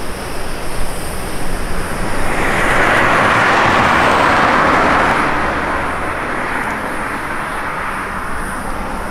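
A car driving past, its tyre and engine noise swelling to a peak about four seconds in and then fading away.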